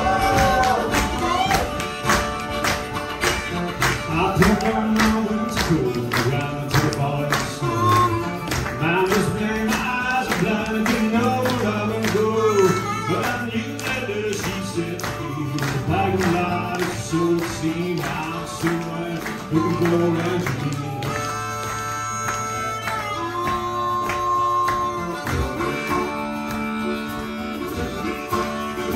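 Live band music: strummed acoustic guitars with drums and percussion keeping a steady beat, and a voice singing over them.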